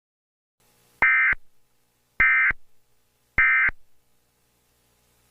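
Three short bursts of Emergency Alert System SAME data tones, each a buzzy electronic warble about a third of a second long, a little over a second apart. This is the end-of-message signal that closes an EAS alert.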